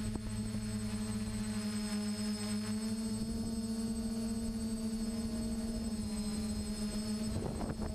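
DJI F450 quadcopter's four electric motors and propellers humming steadily in flight, heard on board the craft.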